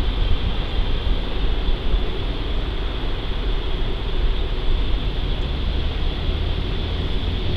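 Norfolk Southern freight train's diesel locomotive engines working under power as the train approaches, a steady low rumble with no horn.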